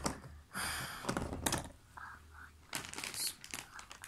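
Plastic bag of cardboard jigsaw puzzle pieces crinkling, with the pieces clicking and rattling against each other as they are handled.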